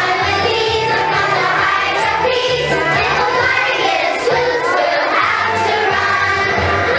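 A group of young children singing together in unison over an instrumental accompaniment with a steady bass line.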